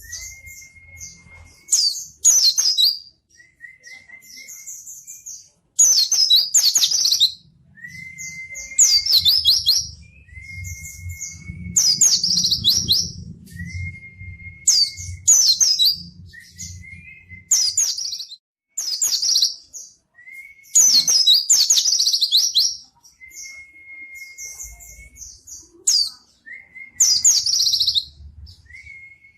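A pleci (white-eye) singing continuously: loud bursts of rapid, high twittering song every one to three seconds, with a thin, steady whistled note held between the bursts.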